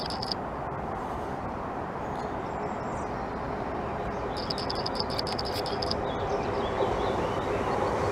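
Diesel multiple unit (a Class 153 coupled to a Class 170) running in to the platform, a rumble that slowly grows louder with a steady engine hum coming up in the second half. Birds chirp briefly at the start and again about halfway through.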